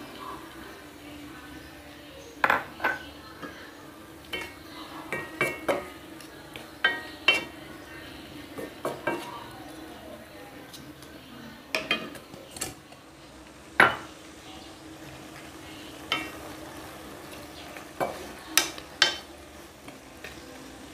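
A wooden spatula stirring chicken pieces in a stone-coated wok, knocking sharply and irregularly against the pan, over a quiet sizzle from the pan.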